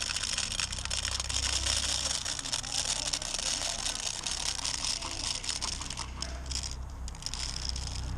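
Continuous crackling, clicking and rattling of loose airsoft BBs as a high-capacity magazine that has dumped its BBs into a pouch is being refilled by hand.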